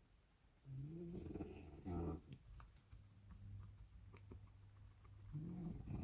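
A sleeping dog snoring: a rasping, pitched breath about a second long, then a shorter one, with the pair coming again near the end. Faint clicks fall between the snores.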